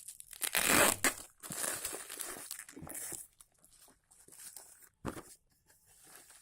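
Packaging being torn open and crinkled by hand: a loud tearing rip about half a second in, then irregular rustling and crinkling that comes and goes.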